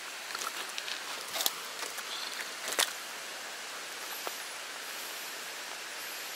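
Steady hiss of rain and running water, with a few short rustles and sharp clicks as a small black bass is handled and unhooked by hand. The loudest clicks come about one and a half and just under three seconds in.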